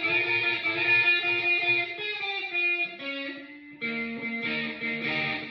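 Electric guitar fitted with Hot Rails pickups, played through an amp: sustained notes ring out and fade, then a new run of picked notes starts after a short lull past the middle.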